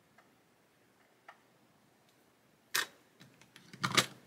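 Small hard-plastic clicks and taps as a tiny plastic hook part is handled and pressed into a hole in a plastic model kit's hull. A few faint ticks come first, then a sharp click nearly three seconds in, a run of small clicks, and the loudest cluster of clicks near the end.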